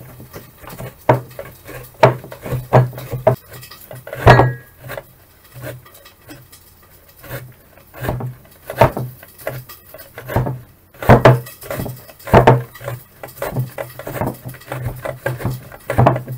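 A young zucchini grated by hand on a stainless steel grater: repeated rasping strokes of the vegetable across the metal blades, in an uneven rhythm of about one or two strokes a second, with a quieter lull in the middle.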